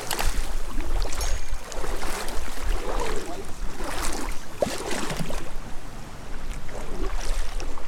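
Kayak paddle strokes, the blades dipping and splashing in the water about once a second, over a steady low rumble.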